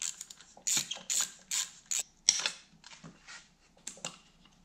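Socket ratchet wrench clicking in a run of short, quick strokes while loosening a radiator mounting bolt on a dirt bike.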